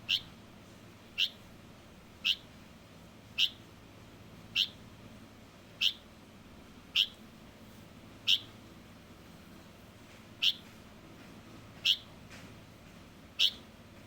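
Young light-vented bulbul (Chinese bulbul) giving single short, high cheeps about once a second, eleven in all, with one longer pause past the middle.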